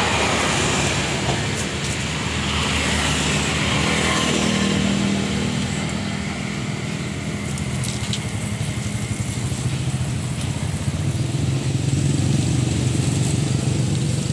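A motor vehicle's engine running steadily with a low hum, a little louder near the end.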